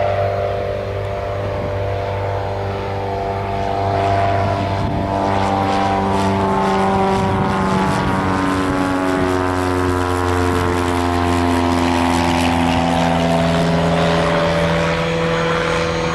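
Light piston-engine propeller aircraft running close by, a steady engine drone whose overtones sweep down and back up in pitch as the aircraft moves past.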